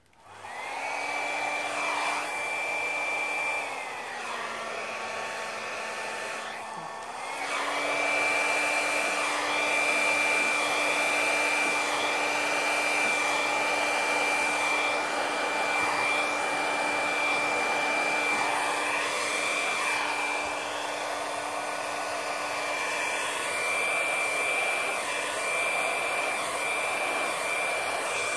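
Hand-held hair dryer switched on and blowing wet acrylic pour paint outward across the canvas, with a steady motor whine over a rush of air. About three and a half seconds in, it drops to a lower speed for a few seconds, then comes back up and runs steadily.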